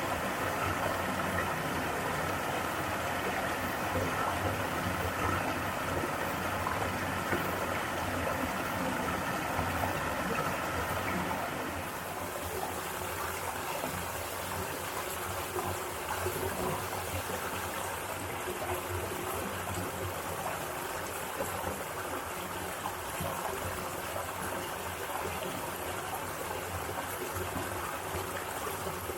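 Mountain stream water rushing and splashing steadily over rocks. About twelve seconds in the sound shifts to a slightly quieter, different-toned flow.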